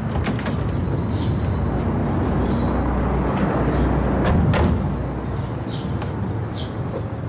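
Steady rumble of street traffic beside a parked car, growing louder about four seconds in. A few sharp clicks and knocks from the car's door and body are heard over it.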